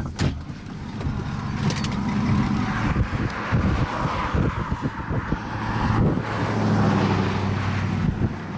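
Wind gusting and buffeting on the microphone, over the low steady hum of a vehicle engine that grows stronger near the end.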